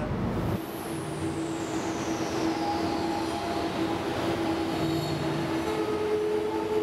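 Droning ambient soundtrack of a dance performance piece: held tones over a hiss, with a high whistle gliding steadily downward over the first few seconds and a second, higher tone coming in near the end.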